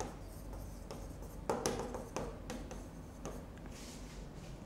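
A pen writing words on a board: faint scratching strokes with a few short, light taps.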